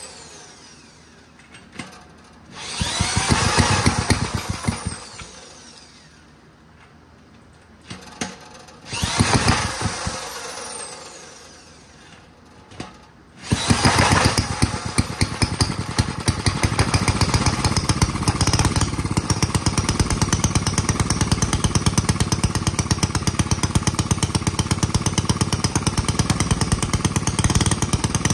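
Rebuilt 1947 Clinton single-cylinder small engine spun over twice with an electric drill on the crankshaft, each attempt a few seconds of whirring that winds down. On the third spin, about halfway through, it catches and keeps running with a fast, even firing beat that gets louder a couple of seconds later: the first start after the rebuild.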